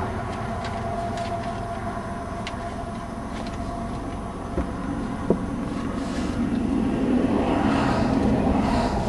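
Steady rumble of a vehicle heard from inside its cabin, with a couple of faint clicks about five seconds in and a swell in loudness near the end.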